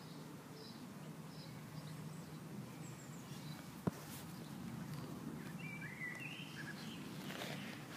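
Quiet outdoor ambience with faint bird chirps, a few short ones early and a brief call about six seconds in, over a low steady hum, and a single sharp click just before four seconds.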